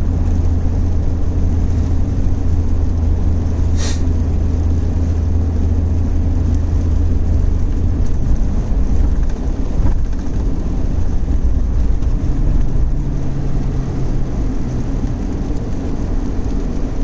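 Steady engine and road drone inside the cab of a 3/4-ton pickup truck cruising at about 47 mph; the low hum eases about halfway through. A single sharp click sounds about four seconds in.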